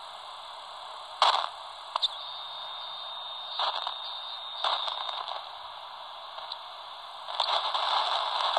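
Albrecht AE2990 AFS handheld CB radio receiving sideband on the 27 MHz band while being tuned across the frequencies: steady receiver static, broken by short crackling bursts a few times. A thin steady whistle sounds from about two to five seconds in, and the noise swells louder near the end.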